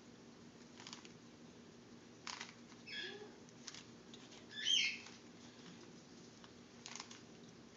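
A plastic Rubik's Cube being twisted, its layers giving a few sharp clicks as they turn. Twice in between comes a short, high, wavering chirp, the second one louder.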